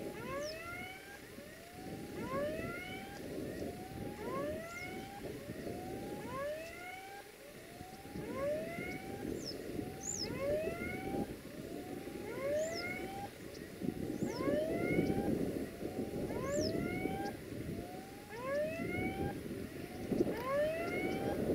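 A chorus of repeated rising whooping calls, about one every 0.7 s from several callers, with short high chirps above. A low rumble from the approaching diesel freight train swells around two-thirds of the way in and again near the end.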